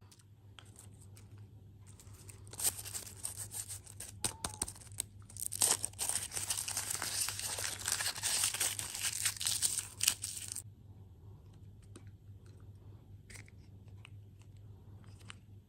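Packaging crinkling and tearing for about eight seconds, a dense crackle that stops suddenly, with light clicks and taps before and after.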